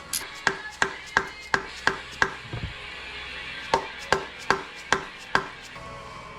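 A run of sharp clicks, about three a second, in two bursts with a pause of a second or so between them. It is hand-tool work on the oil pan bolts during oil pan removal.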